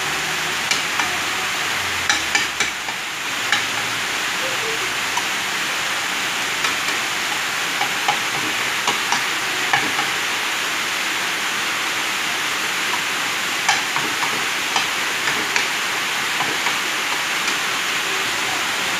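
Egg frying in margarine in a frying pan: a steady sizzle with scattered sharp pops and clicks.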